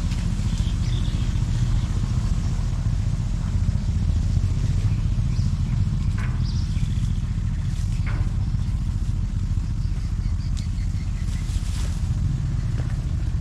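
A small engine running steadily, an even low hum, with a couple of faint ticks about halfway through.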